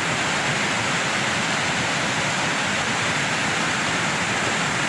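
Fast-flowing floodwater rushing steadily across a washed-out road.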